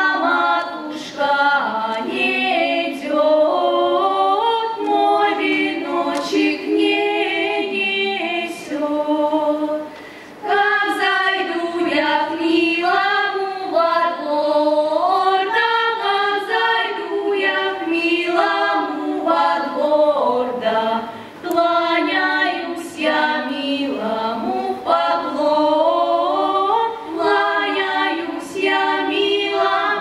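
Girls' folk ensemble singing a Russian folk song a cappella, with a short break between phrases about ten seconds in.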